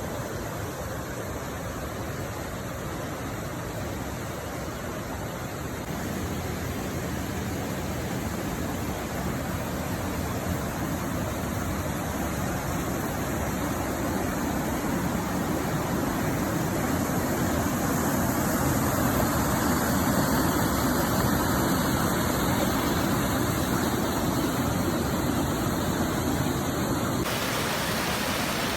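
Rushing river water falling over waterfalls: a steady, even rush that grows louder through the first two-thirds and changes character abruptly near the end.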